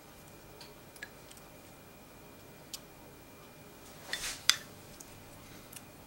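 Pastry brush working a liquid coating onto soft shaped dough buns on a parchment-lined baking tray. Faint scattered small ticks and dabs, then a short rustling swish about four seconds in that ends in a sharp click, the loudest sound.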